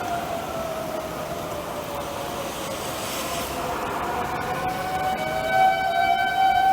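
Outdoor civil defense tornado siren sounding for a tornado warning. Its tone slides down in pitch over a few seconds, then climbs back up and grows louder near the end.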